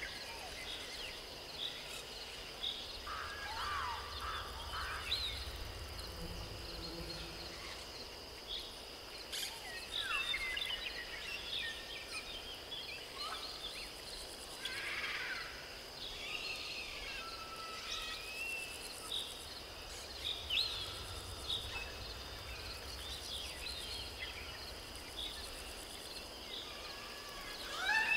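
Natural ambience of many small birds chirping on and off, over a steady high-pitched insect drone and a faint low rumble.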